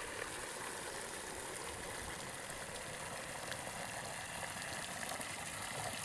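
Water from an outdoor garden tap pouring steadily into a plastic bucket, filling it.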